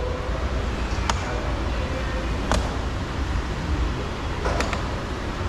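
A few sharp plastic clicks, about a second in, midway and near the end, as a flathead screwdriver pries the window switch panel out of a car's door trim panel, over a steady low rumble.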